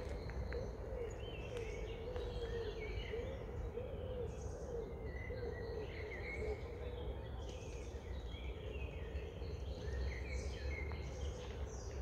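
Several songbirds chirping and singing in short scattered phrases over a steady low rumble, with a low wavering hum through the first half.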